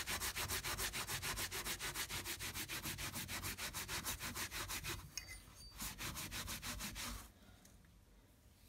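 A rag rubbed briskly back and forth over the stacked-leather handle of an Estwing hatchet, about six even strokes a second, burnishing the linseed-oiled, still-dry leather. The rubbing pauses briefly about five seconds in and stops about seven seconds in.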